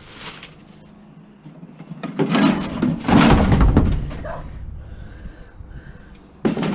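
Clattering and rustling of scrap electronics and cords being handled and shifted, with a louder knock near the end.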